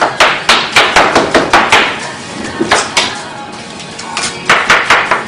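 Knife chopping a watermelon rapidly on a cutting board, the blade striking the board about five times a second. The chopping comes in runs, with two short pauses in the middle.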